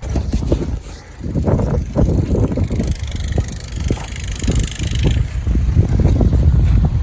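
Tractor engine running with a low, uneven rumble, and a hiss over it for a couple of seconds in the middle.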